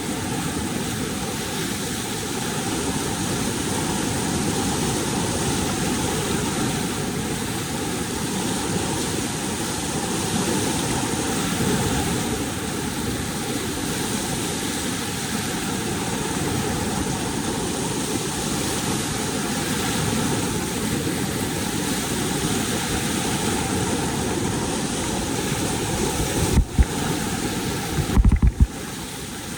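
Steady rushing roar of whitewater pouring through a dam gate and forming a surf wave. Near the end there are a couple of brief low bumps.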